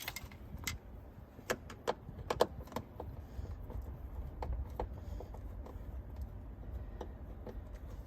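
Light metallic clicks and ticks of a screwdriver and screws while Phillips screws are worked out of a car's inner door panel. The clicks bunch up a second and a half to three seconds in, then come more sparsely.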